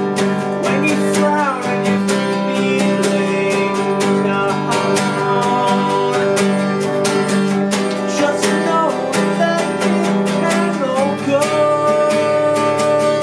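Acoustic guitar strummed in a steady rhythm while a man sings over it; the chord changes about eleven seconds in.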